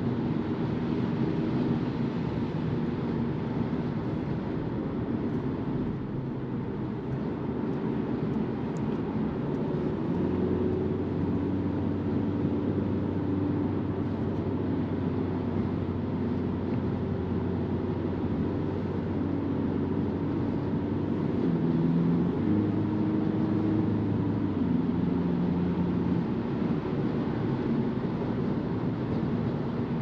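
Cabin sound of a BMW 220d xDrive Gran Coupe cruising on the motorway: steady tyre and wind noise under the low drone of its four-cylinder diesel. The drone shifts pitch in steps a few times.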